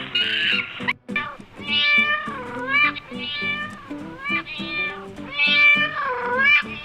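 Domestic cat meowing: several long, drawn-out meows that dip and rise in pitch, over background music.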